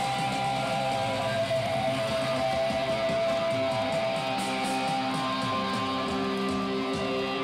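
Live rock band playing loud electric guitars over drums and cymbals, with long held guitar notes ringing out and no singing, recorded from the crowd.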